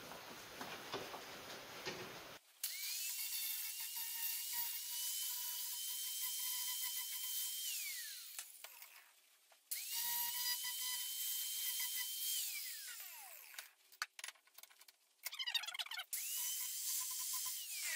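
Angle grinder sharpening a lawn tractor mower blade clamped in a bench vise. After a few seconds of handling clicks, the grinder spins up to a steady high whine, is switched off and winds down, and this happens twice; some clicks follow, and near the end it starts up a third time.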